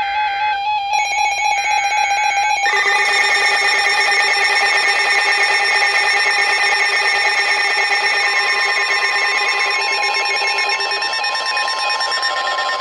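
Emergency Alert System tones on a weather radio, signalling a tornado warning. First a couple of seconds of rapidly alternating electronic data tones, then a loud, steady, harsh multi-tone alert signal lasting about ten seconds; a higher steady tone joins it about eight seconds in.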